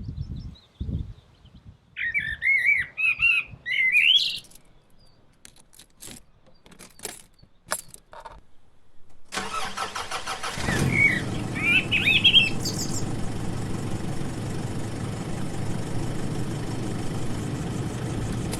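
Birds chirping, then a few clicks, then an engine starts suddenly about nine seconds in and runs on steadily, with more chirps over it.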